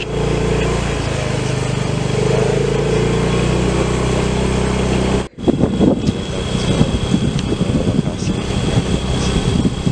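A vehicle engine running at a steady drone while driving. About five seconds in the sound cuts and changes to rough, gusty wind noise on the microphone, with the engine underneath.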